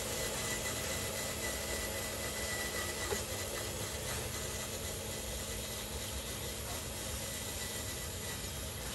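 Electric motor and gearbox of a radio-controlled model dump truck whirring steadily as the loaded truck drives slowly along.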